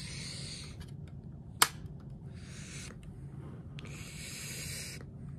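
Soft rustling from toys being handled on a bedspread, in a few short hissy bursts over a steady low hum, with one sharp click about a second and a half in.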